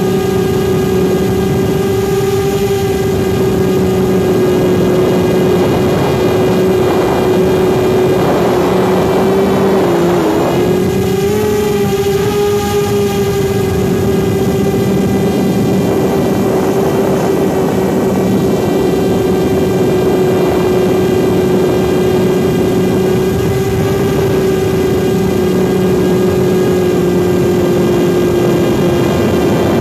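Quadcopter's electric motors and propellers running with a steady whine, heard up close from a phone mounted under the drone, the quad working hard under the heavy phone payload. The pitch wavers briefly about ten seconds in, then settles again.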